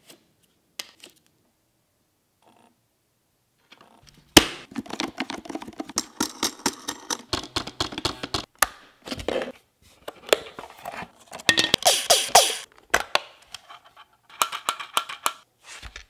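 A DeenKee D40 robot vacuum's plastic parts being handled by hand. The first four seconds are nearly silent. A sharp click comes about four seconds in, then a dense run of clicks, rattles and crinkling as the body, wheel and water tank are moved and handled.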